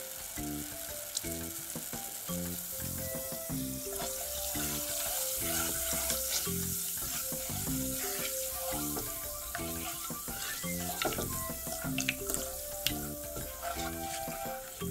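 Hot purple liquid bubbling and hissing in a pot while a silicone spatula stirs it, with scattered small clicks as the spatula touches the pot. Powder is being sprinkled in at the same time. A soft instrumental melody plays underneath.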